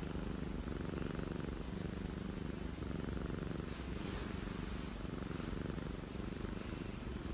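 Calico cat purring steadily as a hand strokes its head and cheek: a low, even rumble.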